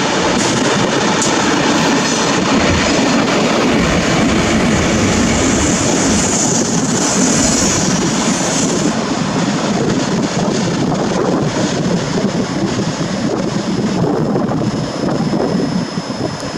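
Freight train hauled by Taiwan Railways R-class diesel-electric locomotives arriving and rolling past at close range: engines running, mixed with wheel and rail noise. The sound holds steady and drops a little near the end.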